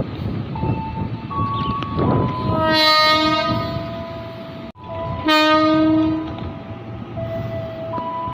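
KRL commuter electric train air horn sounding the 'semboyan 35' signal, the horn a driver gives as the train is about to depart. There are two blasts, a longer one of about two seconds and then, after an abrupt cut, a shorter one, over the train's running hum.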